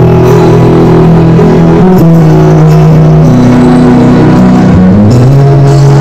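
Live band music over the stage PA during a soundcheck: long held chords that change every second or two.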